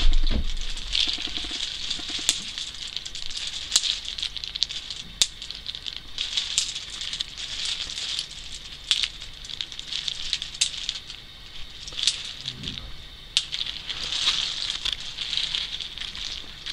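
Hazelnuts in their shells clicking and rattling against each other as a kitten walks over a deep pile of them. A steady run of small clicks with many sharper single clacks. A low thump right at the start.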